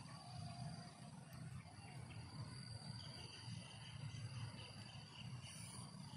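Faint, steady insect chirring: a high, thin continuous tone, joined about three seconds in by a second, slightly lower pulsing trill, over a low rumble.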